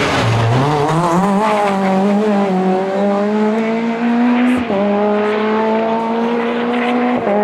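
Skoda Fabia rally car engine passing close: its note dips as the car goes by, then climbs as it accelerates away, with gear changes about four and a half and seven seconds in.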